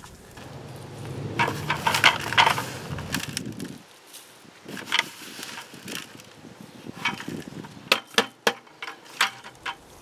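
Compost being spread from a bucket onto garden soil: scattered rustling and crunching, with several sharp clicks and knocks near the end. A low steady hum runs underneath for the first few seconds and stops suddenly.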